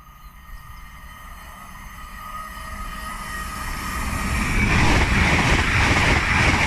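TransPennine Express passenger train approaching, its sound growing steadily louder, then passing loud and close from about four and a half seconds in.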